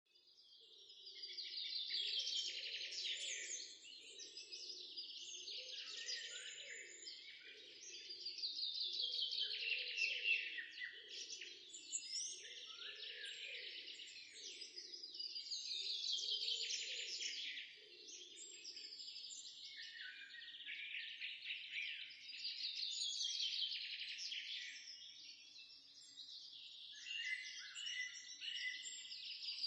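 Songbirds singing: rapid trilled, chirping phrases that swell every six to seven seconds, with a softer low pulsing sound underneath for roughly the first eighteen seconds.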